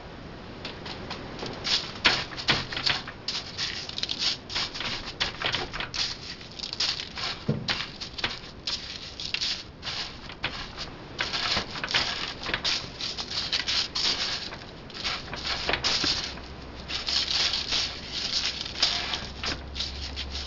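Crushed Ritz cracker crumbs being pressed and packed onto an egg-dipped chicken breast by hand: irregular crackly rustling and patting. A low steady hum comes in about three quarters of the way through.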